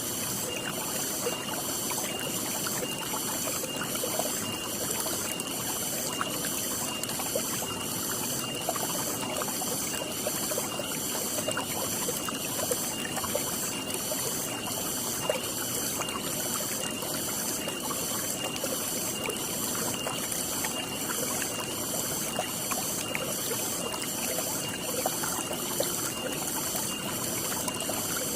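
Water trickling and pouring steadily, with a high-pitched call pulsing evenly throughout, about three pulses every two seconds.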